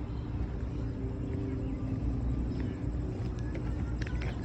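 Steady low rumble on the microphone, with a few faint, short high sounds about three to four seconds in.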